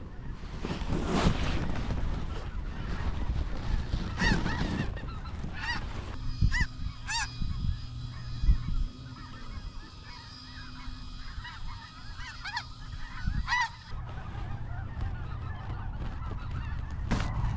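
A flock of snow geese calling overhead: many short, high, nasal honks, overlapping and scattered, over a steady low rumble.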